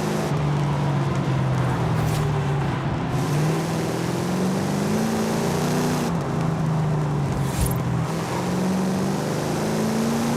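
1968 Dodge Dart Hemi Super Stock's 426 Hemi V8 running steadily. Its pitch dips and then climbs back slowly, twice over.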